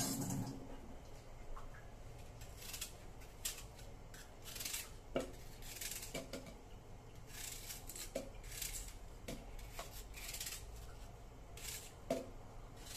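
Handling noises: irregular short scraping strokes and a few light knocks, some spaced about a second apart.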